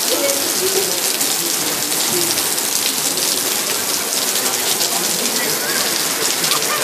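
Heavy rain pouring onto stone paving, a steady dense hiss of drops.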